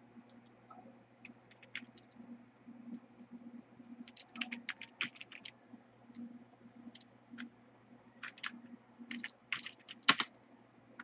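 Typing on a computer keyboard: irregular bursts of keystrokes, the busiest flurries about four to five and a half seconds in and again from eight to ten seconds, with one louder key knock about ten seconds in.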